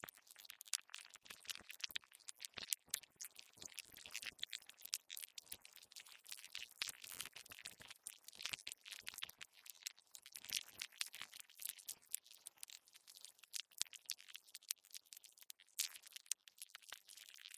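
Earthworm sound effect: a dense, irregular crackle of tiny clicks and scratches, mostly high-pitched, with no steady rhythm.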